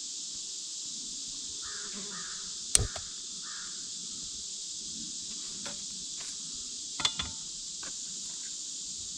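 A crow caws three times, harsh and short, over a steady high drone of insects. Sharp knocks cut in, the loudest about three seconds in and a smaller cluster about seven seconds in.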